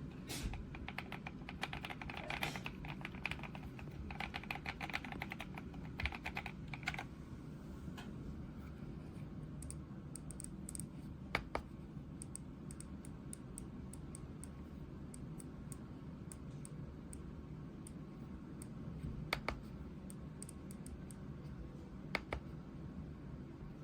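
Typing on an RK Royal Kludge S98 mechanical keyboard: quick runs of keystrokes for the first several seconds, then scattered single key presses, over a low steady hum.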